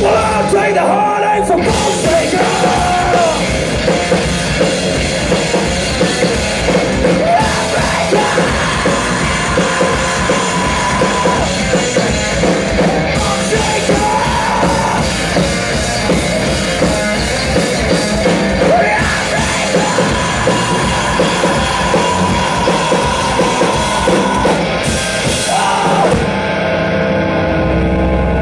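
Live rock band at full volume: electric guitar and a drum kit played hard, with a man singing over them and a long held note running through the middle of the passage.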